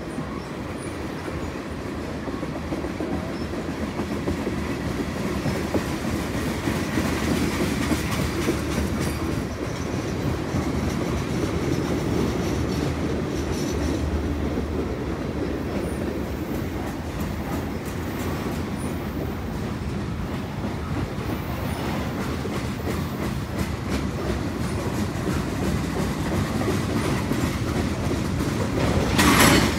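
CN freight train's tank cars and autorack cars rolling past, a steady rumble of steel wheels on rail with clickety-clack over the rail joints. A brief louder burst of noise comes near the end.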